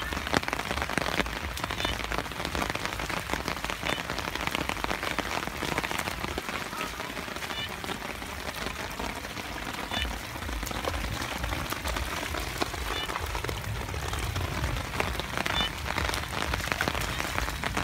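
Rain falling steadily on a flooded, grassy field: a continuous patter of many small drops.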